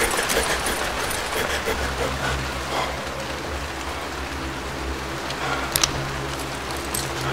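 Steady rain falling, with a low steady hum that comes in about two seconds in. Two sharp clicks close together about six seconds in.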